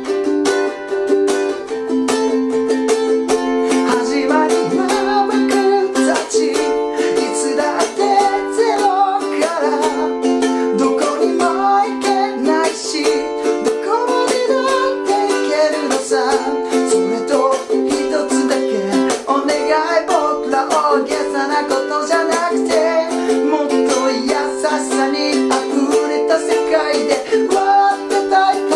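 G-LABO Gazz Model ukulele strummed in a fast, driving rhythm through a C–G7–Am–F instrumental break. From a few seconds in, a man's voice sings a Japanese pop melody over the strumming.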